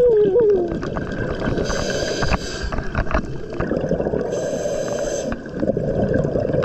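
Scuba diver breathing through a regulator underwater: a hiss of about a second on each inhale, roughly every three seconds, alternating with the rumbling gurgle of exhaled bubbles. A brief wavering tone falls in pitch right at the start.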